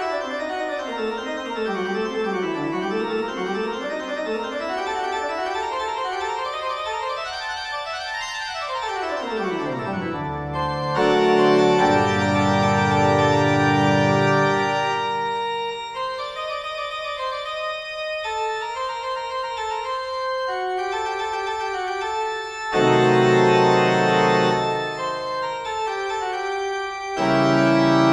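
Instrumental background music: fast runs of notes sweeping down and up, a steep falling glide about nine seconds in, then held chords over a heavy bass that swell louder several times.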